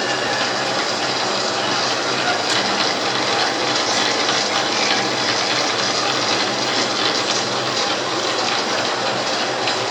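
Milling machine with a gear-hobbing attachment running steadily: an even, continuous machine noise over a steady low hum, unchanging throughout.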